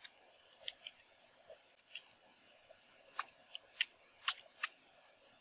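Computer keyboard keystrokes: faint, irregular key clicks, about a dozen, as a terminal command is typed out one character at a time.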